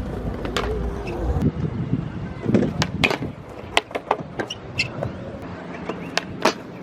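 Skateboard rolling on pavement with a run of sharp, irregular clacks and slaps, like board pops and landings.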